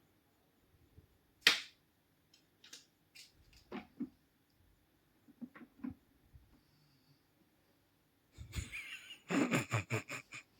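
Scattered knocks and taps in a small room, with a sharp, loud one about a second and a half in, then a louder burst of scuffling noise near the end.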